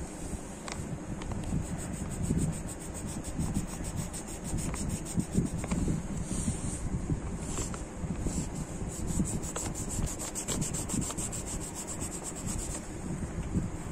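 Yellow coloured pencil scratching on paper in rapid back-and-forth shading strokes, a steady run of short scratches.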